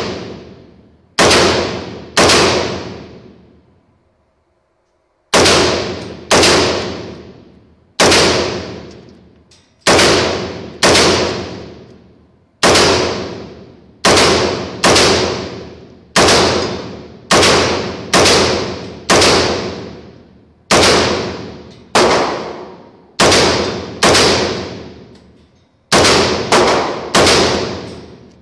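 AR-15 rifle fired one round at a time, over twenty single shots spaced about a second apart with a pause of about three seconds after the first few. Each shot rings out and dies away over a second or two in the echo of an indoor range.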